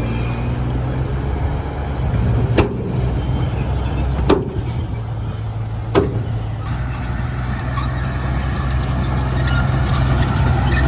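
Heavy diesel machinery engine running steadily, with three sharp knocks a little under two seconds apart and busier, higher-pitched rattling and squeaking toward the end.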